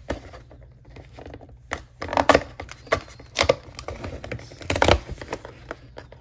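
Perforated cardboard door of an advent calendar being pushed in and torn open by fingers: a run of sharp cardboard cracks and scrapes, the loudest about five seconds in.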